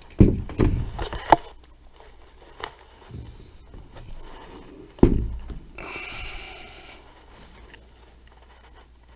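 Lathe parts being handled during assembly: a cluster of knocks and thumps in the first second and a half, another thump about five seconds in, then about a second of scraping.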